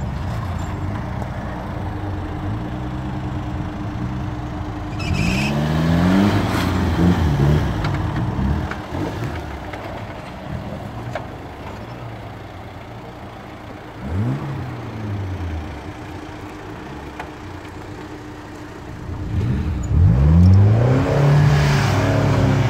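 Rayton Fissore Magnum 4x4's engine working under load as it climbs and drops over steep dirt mounds, revving up three times, about five, fourteen and twenty seconds in, with lower steady running between. A faint steady whine runs through the middle stretch.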